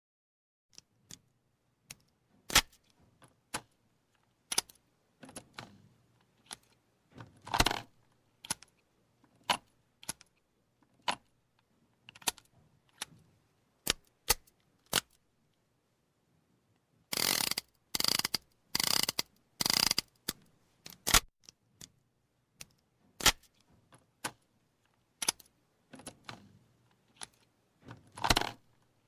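.38 revolver being reloaded and cocked: irregular sharp metallic clicks and clinks of the cylinder, cartridges and hammer. A little past halfway come four longer metallic rattles close together.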